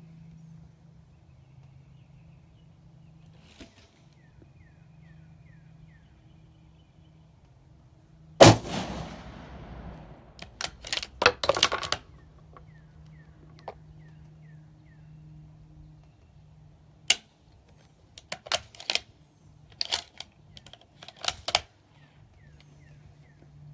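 One shot from a Savage 110E bolt-action rifle in .270 Winchester about eight seconds in, echoing as it dies away. It is followed by several groups of sharp metallic clicks and clacks from the bolt being worked.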